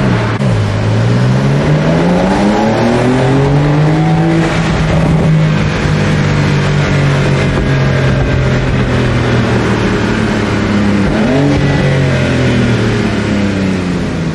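Sports car engine pulling hard, its pitch climbing for about four seconds, then dropping as it shifts up and running steady at cruise. Near the end the pitch dips and jumps up briefly once more before easing off.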